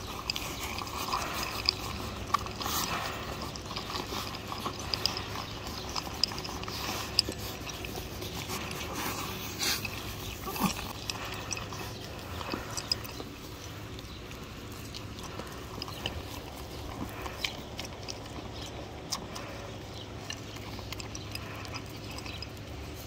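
Sheep eating pellet treats out of a hand-held plastic dish: crunching and scattered clicks of muzzles and teeth against the dish, busiest in the first half and thinning out later as the pellets run low.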